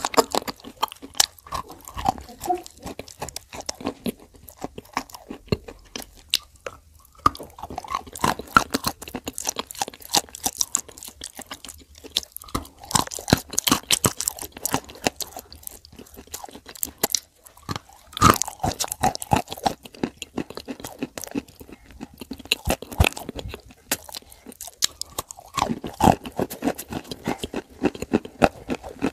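Crunching and chewing of pieces of pressed Turkestan clay dipped in clay paste: dense crisp crackles as each bite breaks up between the teeth.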